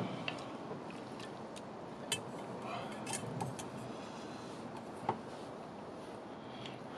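A handful of light, scattered clinks and clicks of eating utensils against dishes at a meal, over a steady low hiss.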